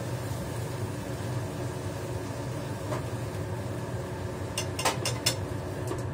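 Kitchen range hood fan running with a steady hum. About five seconds in come several sharp metal clicks and knocks of a utensil and a lid on the frying pan.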